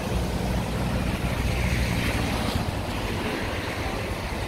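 Steady rush of rainwater running across the street into a storm drain, mixed with wind buffeting the microphone, and the hiss of car tyres on the wet road.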